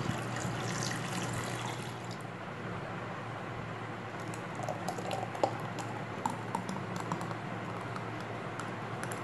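Liquid pouring: water into a steel blender jar, then thick plum smoothie into a glass, with a few small clicks and splats about halfway through.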